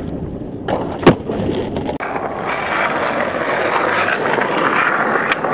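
Skateboard hitting the street with a sharp clack about a second in, then its wheels rolling over asphalt in a steady gritty rumble.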